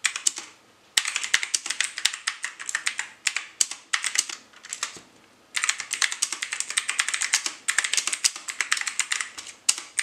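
Fast typing on a Gamdias Hermes E1 mechanical keyboard, a rapid run of key clicks that starts about a second in, pauses briefly near the middle, then resumes.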